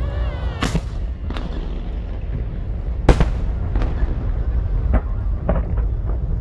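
Fireworks bursting: about seven sharp bangs over six seconds, the loudest about three seconds in, over a steady low rumble.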